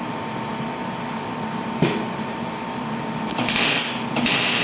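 Steady hum of a welder, then two runs of welding sizzle from about three and a half seconds in, with a brief break between them, as the exhaust mid-pipe is welded to the muffler.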